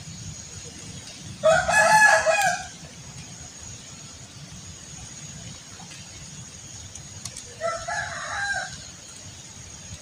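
A rooster crowing twice: a loud crow lasting about a second and a half, then a fainter one near the end.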